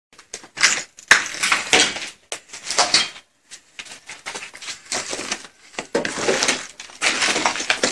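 Footsteps on rubble and debris, loose fragments crunching and clinking in irregular bursts, with a brief pause a little after three seconds in.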